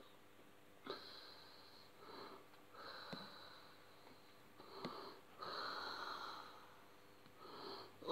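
Faint breathing close to the microphone, in uneven breaths of about half a second to a second each, with a few light clicks in between.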